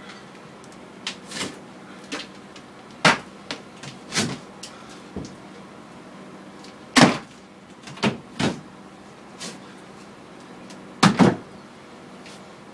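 Irregular knocks and clunks of boards and ceiling material being handled and shifted in an opened ceiling: about a dozen sharp strikes, the loudest about three, seven and eleven seconds in, over a steady low hum.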